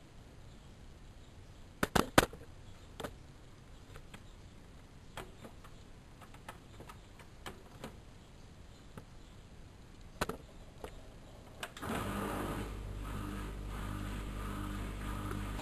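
Bauknecht WAK7760 washing machine at the start of its cycle: a cluster of three sharp clicks about two seconds in and scattered small ticks, then about twelve seconds in a steady rushing hum sets in as water starts to run into the machine.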